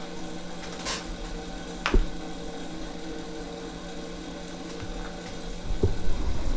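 Steady mechanical hum with a sharp click about two seconds in, and low bumps and handling noises near the end.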